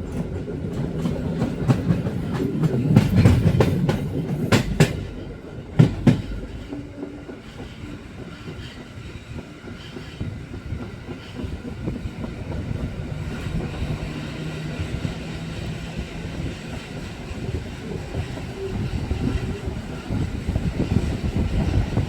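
EN57 electric multiple unit running on the track, its wheels clattering over the rail joints. Several loud, sharp knocks come between about four and six seconds in, then a steadier rumble that grows louder again near the end.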